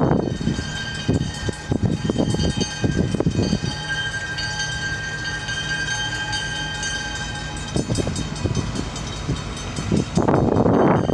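Approaching EMD GP38-2W diesel freight locomotive, its non-turbocharged 16-cylinder two-stroke engine humming steadily at a distance. A steady high ringing tone sounds for a few seconds midway. Gusts of wind noise hit the microphone at the start and near the end.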